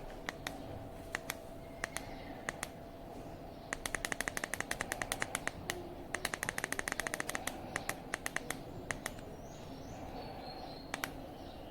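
LEVOIT tower fan running with a steady whoosh of air and a faint hum. Over it come sharp clicks, a few scattered ones and then a rapid rattling run of them through the middle.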